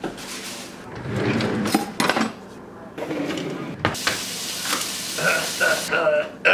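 Kitchen cooking sounds: clatter of dishes and utensils and knocks of a chef's knife chopping on a plastic cutting board, then a hiss like food sizzling for about two seconds. Near the end a man's voice makes short repeated sounds.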